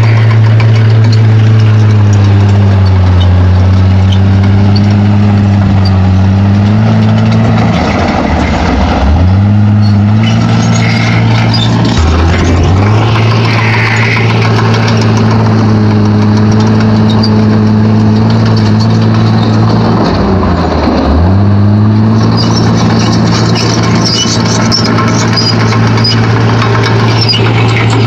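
Komatsu D31P crawler bulldozer's diesel engine running steadily under work, its pitch dropping briefly three times (about a third of the way in, near halfway and about three quarters in) before picking back up, with occasional short squeals over the engine.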